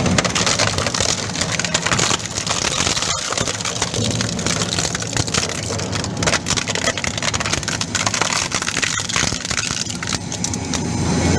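Grinding machine running with a dense, continuous crackle as material is crunched and ground in it.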